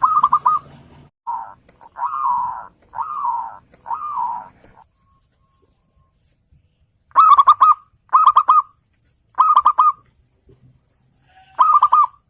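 Zebra dove (perkutut) cooing. A quick pulsed phrase is followed by four longer, falling coos. After a pause of about two seconds come four short phrases of rapid, trilling coo notes.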